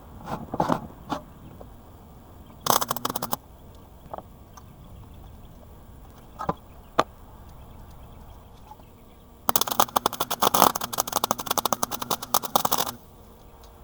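Two bursts of rapid, dense crackling, typical of MIG welding: a short tack of about half a second, then a longer bead of about three and a half seconds near the end, with a few separate clicks in between.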